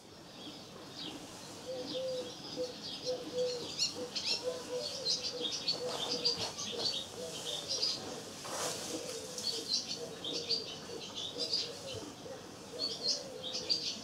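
Barn swallows twittering at the nest: a busy stream of short, high chirps, with a lower run of short repeated notes underneath and a brief rush of noise about eight and a half seconds in.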